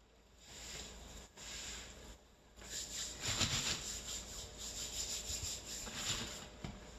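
Spoon scraping and rubbing through soft stuffed chard leaves on a metal serving tray, in quick rasping strokes. A short stretch comes about half a second in, and a longer, louder one starts about two and a half seconds in.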